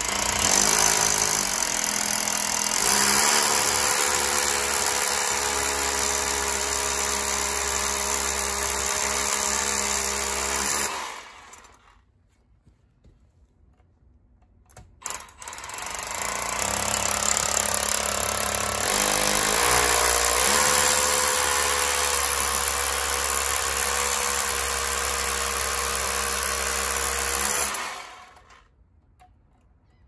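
Cordless rotary hammer drilling into a stuccoed masonry wall with a long masonry bit: two holes in a row, each run steady for about eleven seconds, with a pause of a few seconds between them. These are anchor holes for a heat pump's wall-mount bracket.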